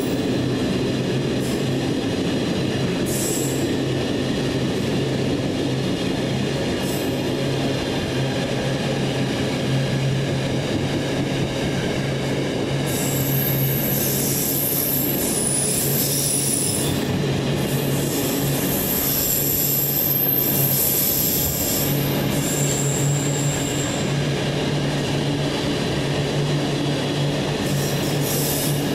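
A long container freight train of loaded flat wagons rolling steadily past, its wheels rumbling on the rails. High-pitched wheel squeal comes and goes as the wagons round the curve, strongest in the middle stretch.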